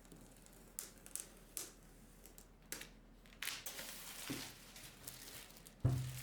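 Packaging being handled: scattered crinkles and rustles of wrapping, a longer rustle about three and a half seconds in, and a thump near the end as something is set down.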